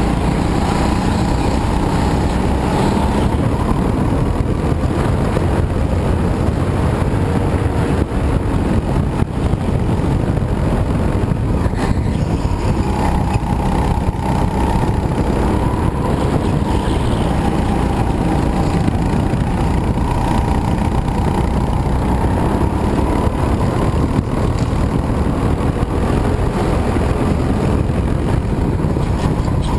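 Racing go-kart engine running continuously at speed, its pitch rising and falling gently with the throttle through the corners. It is heard from an onboard camera on the kart, with a heavy rumble underneath.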